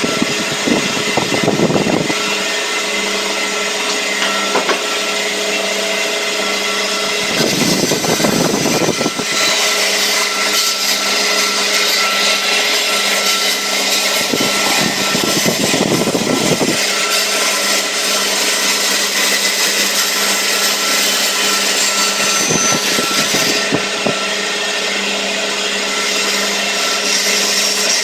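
Bandsaw running steadily with a constant hum while its blade cuts a curve through a wooden board. Three brief, rougher bursts of lower noise come at the start, about eight seconds in and around fifteen seconds in.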